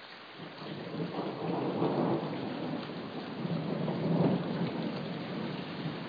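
Rolling thunder rumbling over the steady hiss of rain. The rumble builds about half a second in, swells twice, then eases off near the end.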